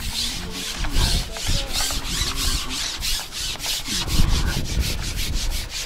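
Fast rhythmic scratchy rubbing, about five or six strokes a second, over a low rumble.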